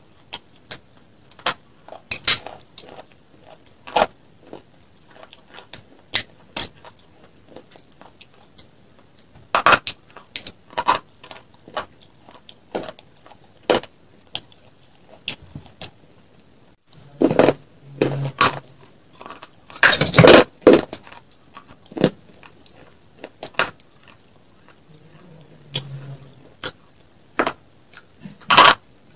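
Close-miked eating sounds: crisp white dessert pieces being bitten and chewed in sharp, irregular crunches, with a flurry of louder crunches about two-thirds of the way through.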